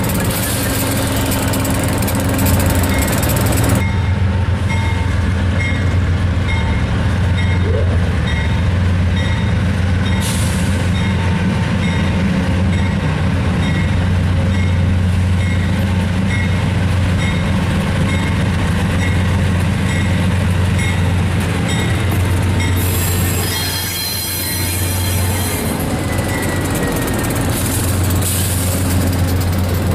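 Amtrak diesel locomotives running close by with a steady low drone, the trailing GE B32-8WH's engine loudest. A high squeal and hiss comes in about two-thirds of the way through.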